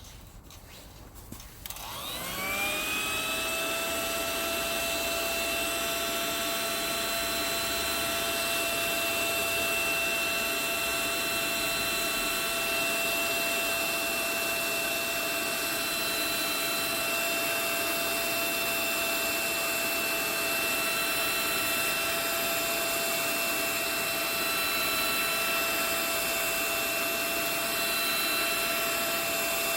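A small electric motor spins up about two seconds in, its whine rising in pitch and then holding a steady high tone with a hiss beneath, running unloaded without a break.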